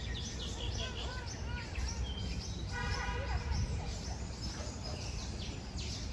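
Many small birds chirping and twittering in the park trees over a steady low background rumble. About three seconds in there is a brief call with a stack of tones.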